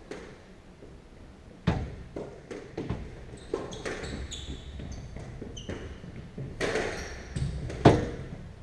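Squash rally: the ball smacking off rackets and the court walls, about ten sharp hits with hall echo, the loudest near the end. Short high squeaks of shoes on the wooden court floor come between the hits.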